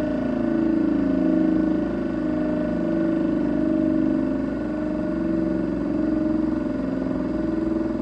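A 1940 Elektror F2 electric siren sounding loudly at full speed during a test, one steady pitched wail that wavers slowly up and down in pitch.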